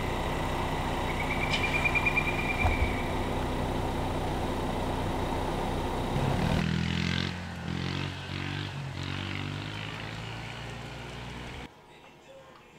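A motor engine running steadily, with a brief high chirping trill about a second in. After about six and a half seconds it changes pitch in steps, then cuts off abruptly near the end.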